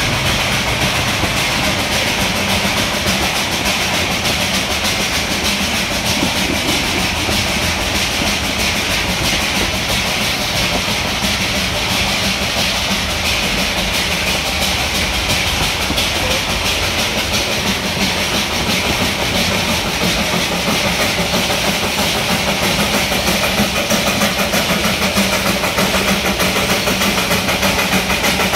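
Darjeeling Himalayan Railway steam train passing close by on its 2 ft narrow-gauge track: a steady clatter of coach wheels on the rails with hissing steam. It grows a little louder near the end as the steam locomotive comes alongside.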